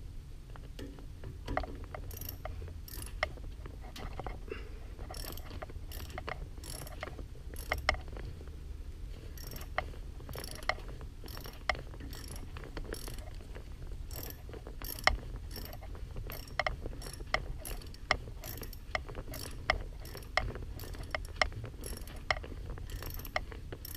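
Hand ratchet clicking in repeated short strokes as bolts are tightened, a sharp click about every half second with brief pauses, over a low steady hum.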